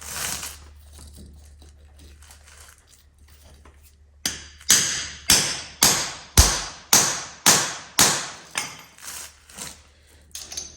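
About eleven even hammer blows on metal, a little under two a second, each ringing briefly, typical of hammering a hammer-type crimper onto a heavy battery cable lug. They follow a few seconds of quieter handling.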